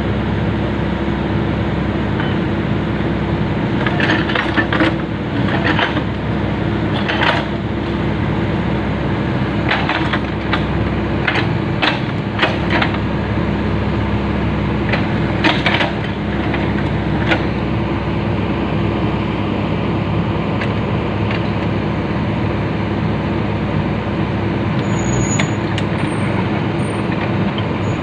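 Excavator diesel engine running steadily, with a series of sharp knocks and clanks over its first half, as during fitting of the track.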